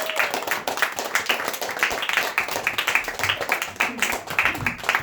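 Audience applauding, a dense patter of many hands clapping with voices calling out among the claps.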